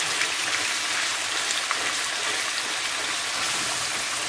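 Minced meat frying in butter in a stainless steel pan as it is stirred with a wooden spatula: a steady sizzling hiss.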